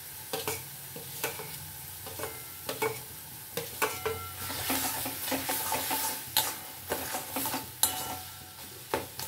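A metal spatula stirring and scraping minced meat and spiced potato paste around a metal wok as it fries, with a low sizzle and repeated short knocks of the spatula against the pan.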